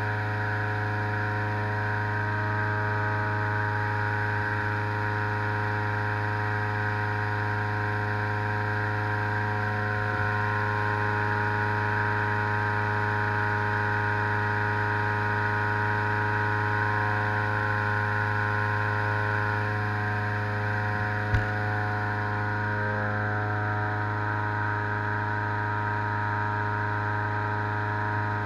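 Petrol-engined inflator fan running steadily, blowing cold air into a hot-air balloon envelope during cold inflation, with one sharp click about two-thirds of the way through.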